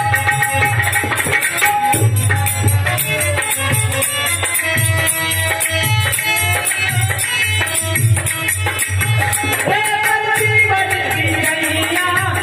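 Live Hindi bhajan music: a harmonium holding steady chords over a dholak's regular beat, with small hand percussion keeping a fast rhythm on top. A man's voice comes in singing about ten seconds in.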